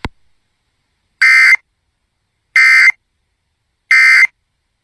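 Emergency Alert System SAME digital data tones sent three times: three short, identical bursts, each under half a second and about a second apart. They are the end-of-message code that closes a weather radio alert.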